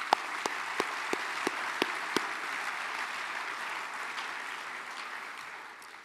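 Audience applauding, with a few distinct nearby hand claps standing out at about three a second over the first two seconds. The applause dies away near the end.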